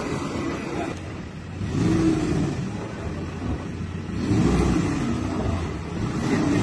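Pickup truck's engine revving in short rises and falls as it crawls over rutted dirt, with one rev about two seconds in and another about four and a half seconds in.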